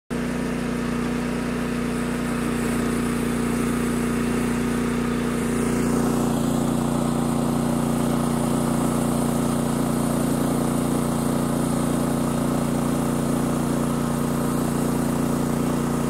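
Engine of a Norwood LM29 portable bandsaw mill running steadily. Its sound shifts slightly about six seconds in.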